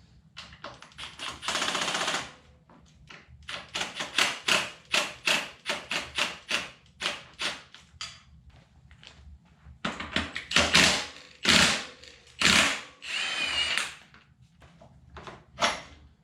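A power tool running in many short bursts, with two longer runs: one about two seconds in and one about two-thirds of the way through.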